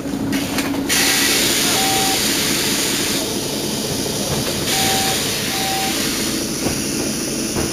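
Mercedes-Benz Citaro city bus with its diesel engine running, and two long hisses of compressed air, one about a second in and another about five seconds in. Each hiss comes with a pair of short electronic beeps.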